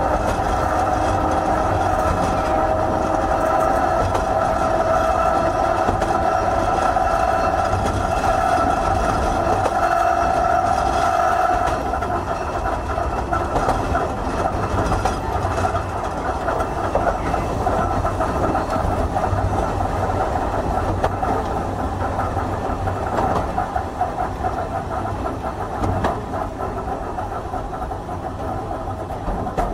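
Hankai Tramway Type 351 tram Mo 354 running, its nose-suspended traction motors and gears giving a steady whine. About twelve seconds in the whine dies away and the rumble of wheels on rail carries on, with a few knocks.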